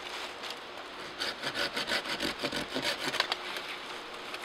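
Folding saw cutting through a thin dead white pine branch: a quick run of rasping back-and-forth strokes, starting about a second in and lasting about two seconds.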